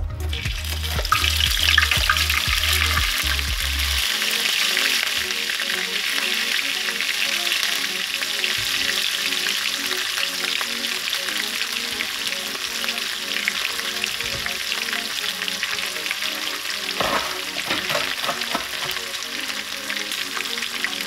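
Chopped spring onions sizzling in hot oil in a small frying pan. The sizzle is loudest as they go into the oil in the first couple of seconds, then settles into a steady crackling fry.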